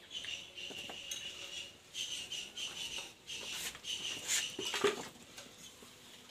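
Metal cookware being handled: an aluminium pot scraping and clinking against steel bowls, with a run of short high squeaks and a louder clatter about four to five seconds in.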